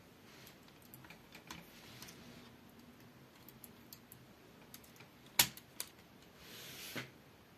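Small plastic clicks and rattles from Lego Technic parts as fingers work the model truck's cab. There is one sharp, loud click about five and a half seconds in, and a short rustle ending in a click near the end.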